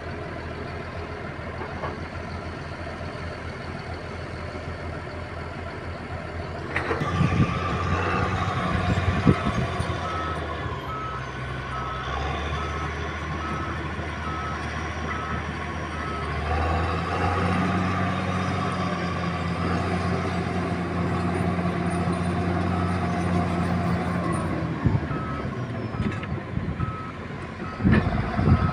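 Heavy diesel earthmoving machine running, its reversing alarm beeping steadily from about a quarter of the way in, with the engine note changing as it works. Sharp knocks of metal on rock or ground come as the beeping starts and again near the end.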